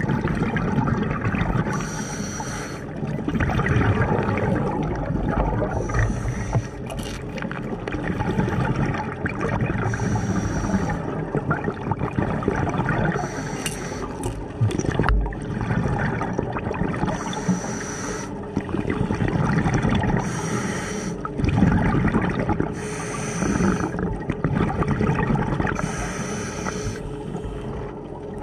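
Scuba diver breathing through a regulator underwater: a hiss of air on each breath in and a rush of gurgling exhaust bubbles on each breath out, repeating every three to four seconds.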